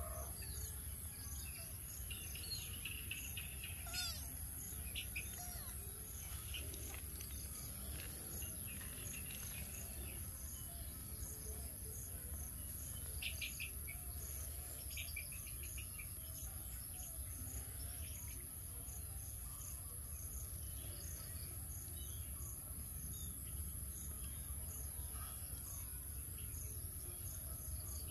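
Countryside ambience of insects and birds: a steady high insect drone with regular chirping about twice a second. Birds call now and then, with short trills about 13 and 15 seconds in, over a low steady rumble.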